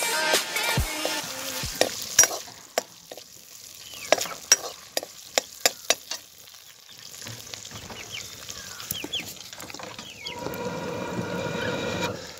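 A metal ladle scrapes and clinks against a steel kadai as chopped onions fry in oil, with a light sizzle under a series of sharp taps. Background music is still playing at the start, and a steady rushing noise takes over near the end.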